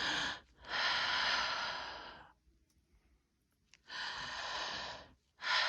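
A woman taking slow, deep breaths in and out through the mouth, the deliberate full inspiration and expiration asked of a patient during lung auscultation. Each breath lasts about a second and a half, with a pause of over a second in the middle.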